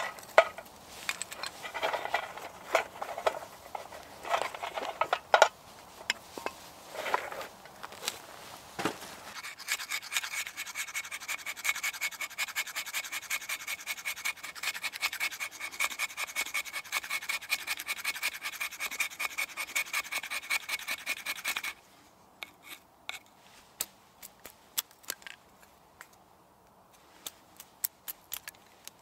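A knife blade scraping a stick of fatwood on a flat stone into fine shavings: about twelve seconds of rapid, even rasping strokes with a faint squeak, stopping suddenly. Before it come scattered clicks and rustling as the knife and a leather pouch are handled, and after it a few light clicks of the knife splitting thin fatwood sticks.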